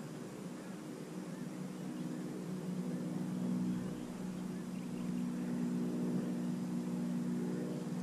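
A steady engine drone with even pitch, dipping briefly about four seconds in and then running on.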